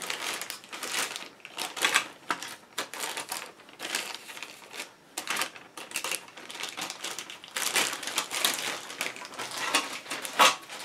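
Clear plastic bag crinkling and rustling as it is handled, with irregular clicks of the plastic kit parts inside it; the sharpest click comes near the end.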